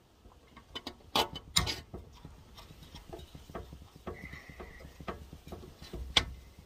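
Small metal clicks, taps and knocks of tools and carburettor parts being handled as the float bowl is taken off. A few sharper knocks come about a second in, and again near the end, with a short squeak in between.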